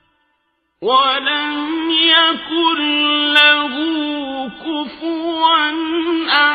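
Melodic Quran recitation: a single voice chanting in long, held, ornamented phrases, starting about a second in after a moment of silence.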